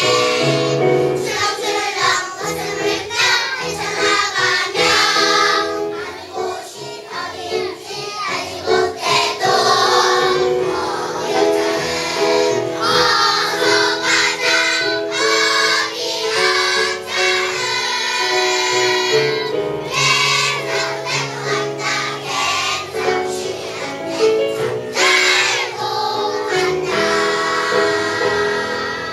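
Children's choir singing a song in unison with instrumental accompaniment, sustained sung notes over a steady backing.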